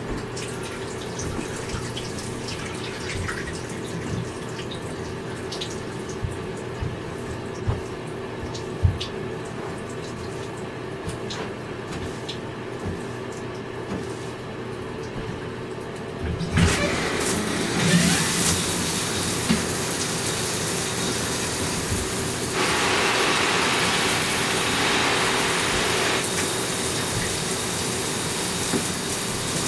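Water running in a bathtub as it is rinsed clear of dog fur, over a steady low hum, with a few knocks in the first half. About halfway through the water gets much louder, rushing hardest for a few seconds later on.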